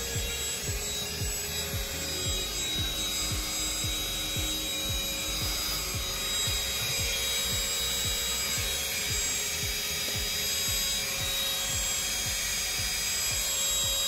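Baseus Capsule cordless car vacuum running with its long crevice tool, a steady motor whine, while the nozzle rubs and scrapes repeatedly over a coil floor mat.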